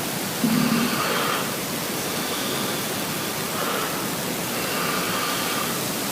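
A sleeping young man's breathing, amplified so far that a loud steady hiss lies over it. A louder breath with a low snore comes about half a second in, and softer breaths follow at intervals.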